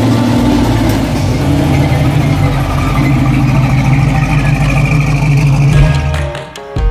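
Classic car's engine idling loudly and steadily, with a deep, even rumble; it fades away near the end.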